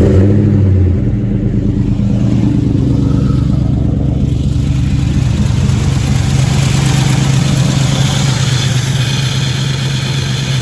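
LS V8 engine in a Chevy S-10 catching on start-up: a loud flare for about a second, then settling into a steady idle. The owner suspects it is not running on all eight cylinders, with lifter noise that sounds a little weird.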